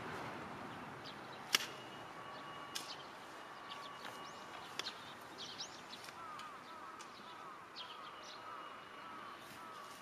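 Quiet rural field ambience with small birds calling: scattered chirps, then a run of short repeated chirps in the second half. A few sharp knocks cut through, the loudest about a second and a half in, and a faint rushing noise dies away over the first second.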